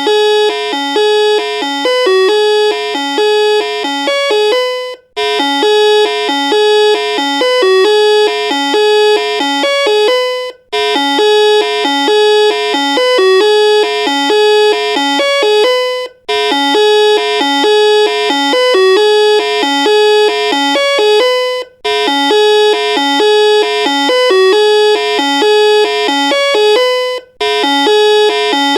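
Novelty electronic doorbell playing a bright, jingly melody. The same phrase of about five and a half seconds repeats over and over, with a brief break before each repeat.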